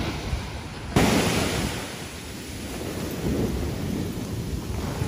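Ocean surf breaking and washing up the beach, with wind buffeting the microphone. About a second in a louder rush of surf starts suddenly and fades over the next second or so.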